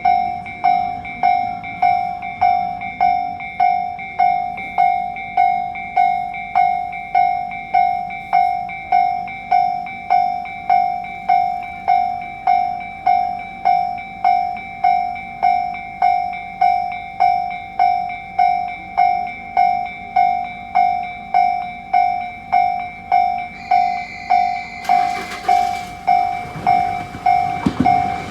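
Japanese level-crossing warning bell ringing steadily, one and a half dings a second. About 25 seconds in, the rushing noise of a Tobu Skytree Line train rises under the bell as the train reaches the crossing.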